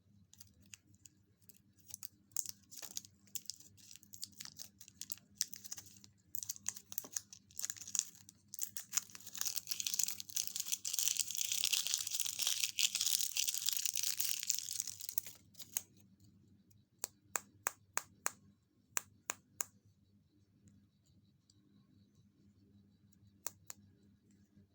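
Close-up handling of a surprise-egg wrapper: scattered light clicks and taps, then several seconds of continuous crinkling and tearing, the loudest part, followed by a quick run of sharp clicks.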